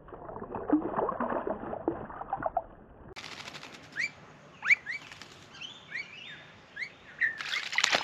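Blue-faced honeyeater dropping into a birdbath and splashing, a loud flurry of water near the end. Before it come a dozen short, sharp bird calls that rise and fall, and in the first few seconds a busy, scratchy rustle.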